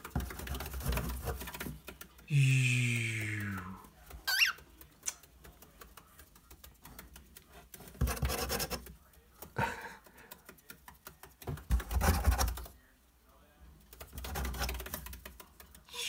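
Fingers scratching and tapping on a cardboard box, with small clicks and rubbing throughout. A cockatiel gives a single short whistled chirp about four seconds in, just after a brief low, falling human vocal sound.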